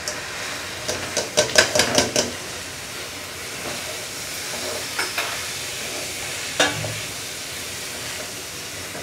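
Rice frying in hot oil in a wide pan, a steady sizzle, as a spatula stirs and scrapes through it. A quick run of clicks and scrapes comes in the first two seconds, and single knocks come about five and six and a half seconds in.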